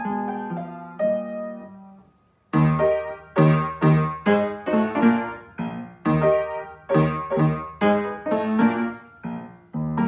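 Piano played four hands by two players: a soft phrase dies away, a short pause follows about two seconds in, then loud, strongly struck chords come one after another.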